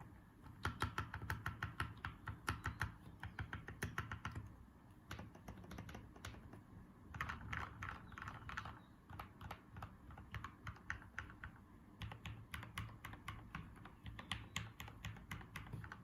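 Typing on a mechanical keyboard with lubed linear Gateron Yellow switches in a stacked acrylic case with MT3 keycaps: fast runs of keystrokes, about 0.5 to 4.5 s, 7 to 9 s and 12 to 16 s in, with scattered keystrokes between the runs.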